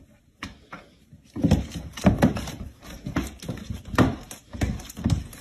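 Cats scuffling in a play-fight, with a rapid series of short animal calls, about two or three a second, starting about a second in.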